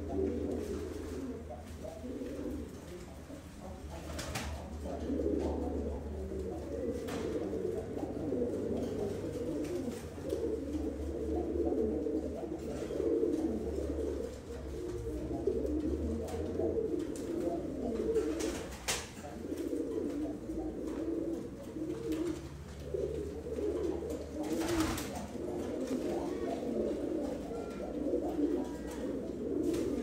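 Iraqi fancy pigeons cooing continuously, several voices overlapping, with a few sharp clicks now and then.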